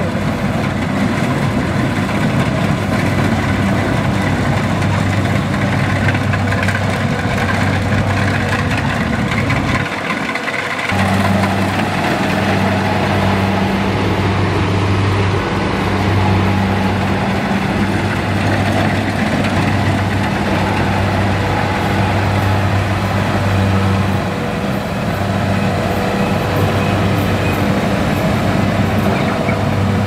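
Kubota DC-70 rice combine harvester's diesel engine running steadily under load as it harvests, with a brief dip about ten seconds in.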